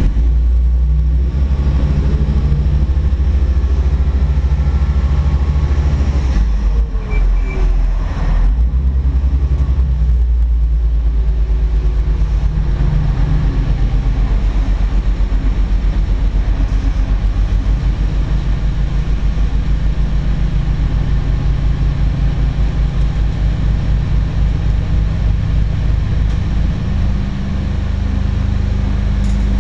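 Twin Cummins QSC 600 hp marine diesels driving Hamilton waterjets, heard from inside the wheelhouse while the boat is underway: a steady low rumble. In the second half it takes on a regular throbbing pulse.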